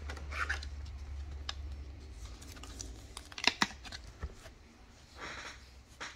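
A trading card being handled in a hard plastic card holder: light plastic clicks and taps, the two sharpest about three and a half seconds in, and a short rustle near the end. A low hum stops about two seconds in.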